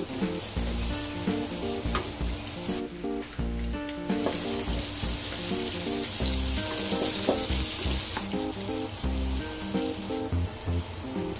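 Minced garlic and sliced chilis sizzling in hot oil in a wok, stirred with a wooden spatula; the sizzle is strongest in the middle. A light, funky background music track with a steady beat plays throughout.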